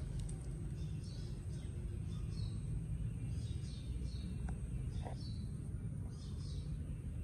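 A bird chirping over and over, short falling calls about twice a second, over a steady low outdoor rumble and a constant thin high tone.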